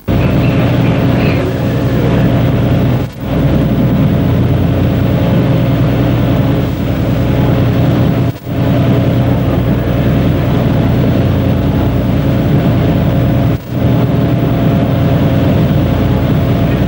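Steady engine drone with a constant low hum, broken by three brief dropouts.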